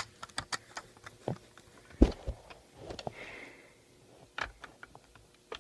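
Scattered light clicks and knocks of a smoke alarm being handled, with one sharper knock about two seconds in.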